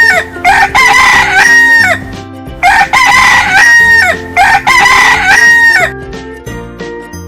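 Rooster crowing: several long cock-a-doodle-doo calls in a row that stop about six seconds in. Light background music plays underneath.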